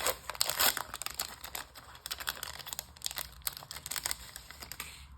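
Foil wrapper of a basketball trading-card pack being torn open and crinkled by hand: dense, irregular crackling, loudest in the first second and growing sparser toward the end.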